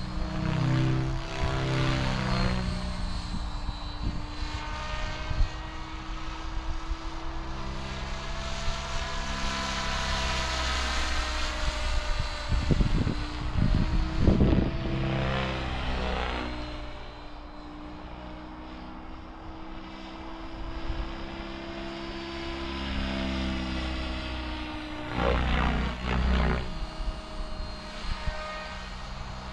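Mikado Logo 700 electric radio-controlled helicopter in flight: its rotor and motor whine sweeps up and down in pitch as it passes back and forth. It is loudest in passes about midway and again near the end.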